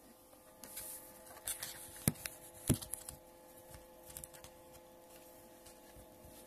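A few scattered faint clicks and knocks, the two loudest about two and two and a half seconds in, over a faint steady hum.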